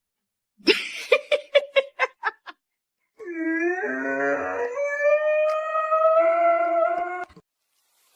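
A dog gives a quick run of short barks, then breaks into one long howl lasting about four seconds that slowly rises in pitch.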